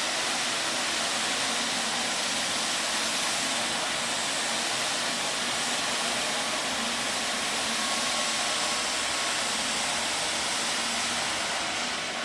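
IPC Eagle CT15 floor scrubber running: a steady rushing hiss from its motors and vacuum, with a faint steady tone underneath.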